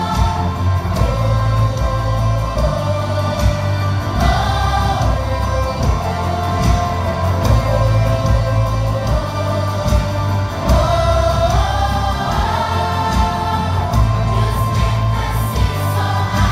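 Children's choir singing an upbeat gospel worship song in unison over amplified accompaniment with a heavy bass.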